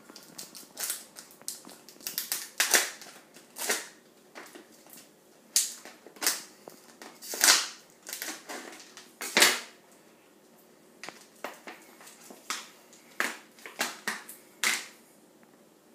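Sticky tape being slit with a knife and peeled off a thin plastic deli tub, with the tub crackling as it is handled: a run of short, sharp rips and crackles at irregular intervals, the loudest about halfway through.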